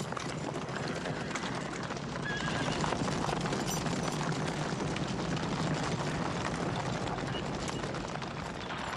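Hooves of several horses galloping on dry, stony ground: a dense, continuous clatter that swells a little in the middle.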